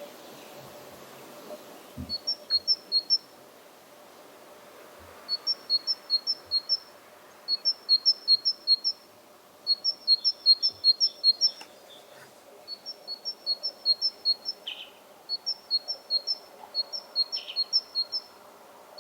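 Great tit singing its two-note 'teacher-teacher' song: runs of quick high-then-low note pairs, several pairs per run, repeated with short pauses between runs. A few shorter, lower notes are mixed in.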